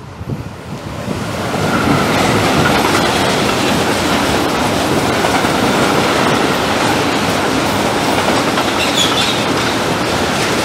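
Freight train hauled by a Siemens Vectron electric locomotive (E.193) passing close by, its open goods wagons rolling past with steady wheel-on-rail noise. The sound swells over the first two seconds as the train arrives, then holds steady.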